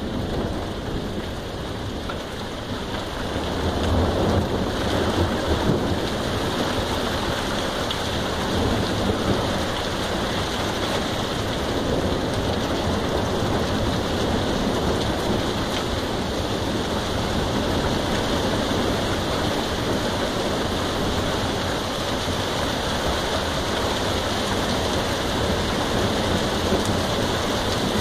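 Heavy rain falling steadily, with a low rumble of thunder swelling about four seconds in and fading out over a couple of seconds.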